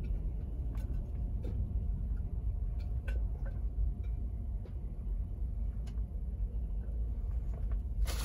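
Steady low rumble inside a semi-truck's sleeper cab, with a few faint clicks and light knocks as onion halves are placed into a slow cooker's crock.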